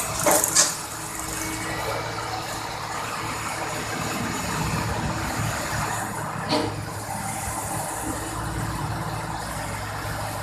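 Heavy track-laying machine's diesel engine running steadily. Two sharp metallic clanks sound, one about half a second in and one about six and a half seconds in.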